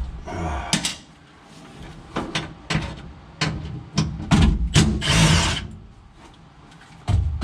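Tools working on metal while a hard-to-reach bolt is fought into place: a run of sharp clinks and knocks, with two short rasping stretches, one near the start and a louder one about five seconds in.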